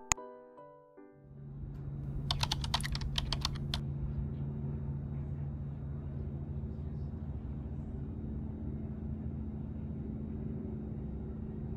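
A quick run of about ten sharp, typing-like clicks lasting about a second and a half, over a steady low hum. A few piano notes end at the very start.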